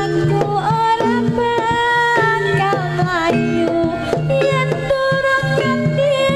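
Live jaranan music: kendang hand-drum strokes under a melody line that slides between held notes.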